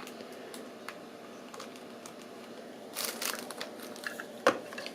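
Handling noises of a USB cable being swapped: a short rustle about three seconds in, then one sharp click near the end as a connector is pushed home.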